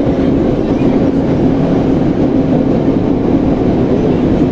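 Moscow Metro 81-717/714 subway train running at speed through the tunnel: a loud, steady rumble of wheels and running gear with a constant low hum.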